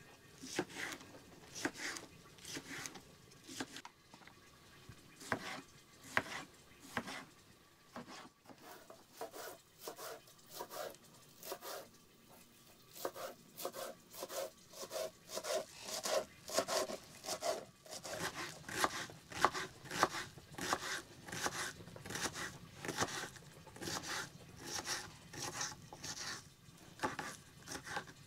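Repeated sharp chopping strokes on wood, about two to three a second, irregular in rhythm and growing quicker and steadier partway through.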